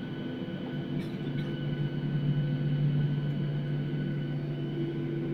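Airliner jet engines running steadily at low power, heard inside the cabin as a constant hum with a few held whining tones. Two faint clicks about a second in.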